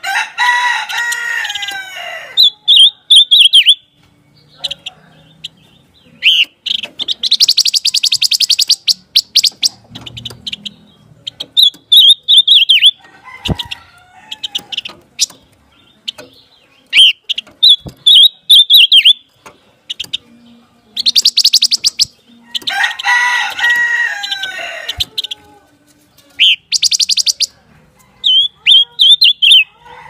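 Silver-eared mesia (pancawarna) singing in repeated bouts of short, quick whistled phrases, with a fast high trill about a third of the way in and again later. Twice, at the start and about three-quarters through, a lower, harsh drawn-out call about two seconds long breaks in.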